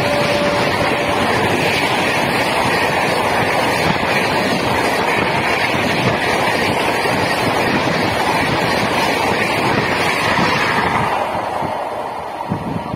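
An Indian Railways express train's passenger coaches rush past at speed, a loud, steady rumble and rattle of wheels on rail and rushing air that fades near the end as the last coach goes by. The tail of the train's horn note dies away in the first second.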